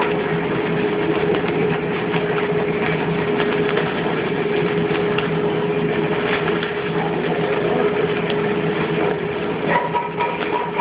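Stick-welding arc crackling and sizzling steadily as a 7024 rod burns at about 100 amps, with a steady hum underneath.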